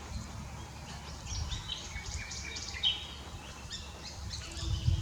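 Common nightingale singing: a varied run of short, high notes and quick whistles.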